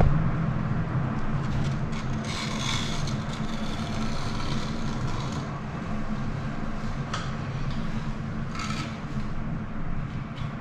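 Scraping and rubbing from hand repair work on a shower's tile and marble: a sharp knock at the start, then a long spell of scraping about two seconds in, a brief one later and another near the end, over a steady low hum.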